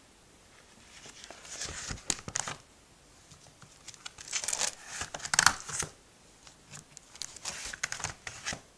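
Plastic card pages in a trading-card binder crinkling and rustling as they are handled and turned, in three bursts of crackle with short pauses between.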